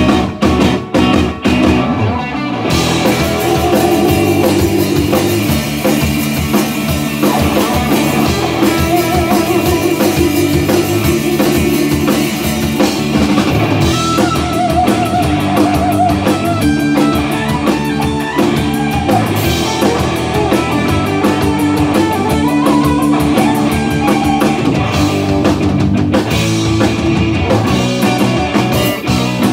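Instrumental blues-rock band playing live on two electric guitars, electric bass and drum kit. A few short breaks in the first two seconds are followed by continuous playing, with a guitar holding notes with vibrato.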